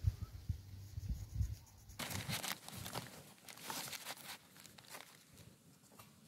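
Crumpled brown paper crinkling and rustling as it is handled around a small wooden wedge, starting about two seconds in, after a few dull handling bumps.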